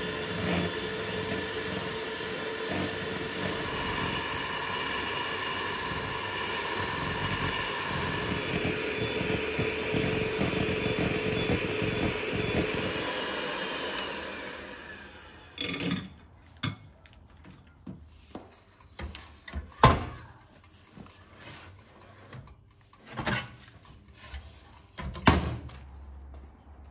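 Electric hand mixer running steadily, its beaters whisking a liquid mixture in a glass bowl, switched off about fifteen seconds in. A few sharp knocks follow.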